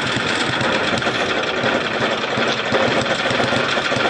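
Tecumseh HM80 8 hp single-cylinder engine running with its fuel shut off, stumbling and protesting as the carburetor runs dry.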